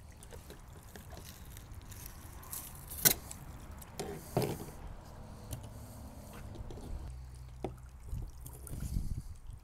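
Halibut being filleted on a cutting board: handling and knife sounds with one sharp knock about three seconds in and a few softer thuds a second later, over a low background rumble that grows near the end.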